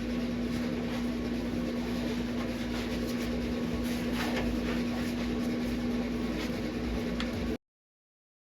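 Steady mechanical hum with one constant low tone over a low rumble, cutting off abruptly about seven and a half seconds in.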